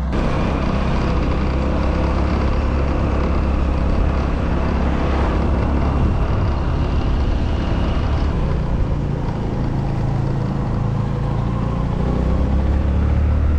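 Motorbike being ridden on the road: a steady engine hum under a heavy, even rumble of wind on the microphone.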